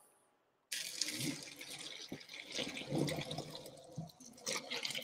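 Pasta and its hot cooking water poured from the pot into a colander in the kitchen sink: a rush of splashing water that starts about a second in and stops near the end, with a single knock partway through.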